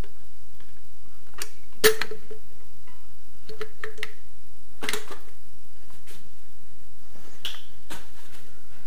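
Scattered clicks and knocks from handling a wall panel and a tube of mounting adhesive, the loudest knock about two seconds in.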